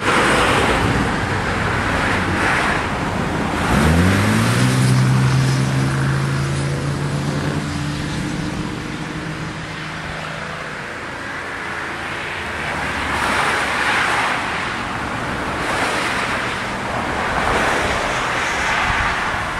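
Road traffic passing, the noise swelling and fading as vehicles go by. About four seconds in, one vehicle's engine note rises, holds steady and slowly fades away.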